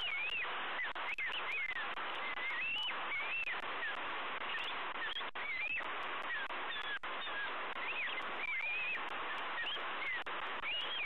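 Bald eagles calling on the nest: a string of short, high, wavering chirps, repeated with short gaps, over a steady background hiss.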